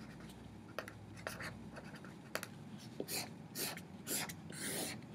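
A marker writing on paper: short scratchy strokes as letters and table lines are drawn, faint at first and coming more often and a little louder in the second half.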